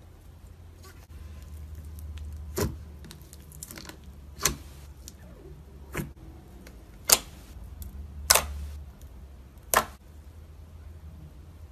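Hands poking, pressing and stretching pink slime, giving six sharp pops about one to two seconds apart over a low steady hum.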